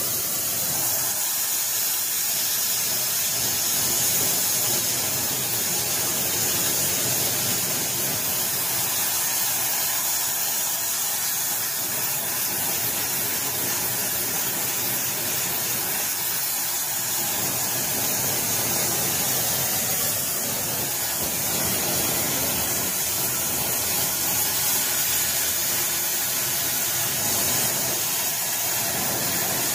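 Oxy-fuel rosebud heating torch burning with a steady hiss, its flame held on a steel exhaust pipe to heat it red hot for bending.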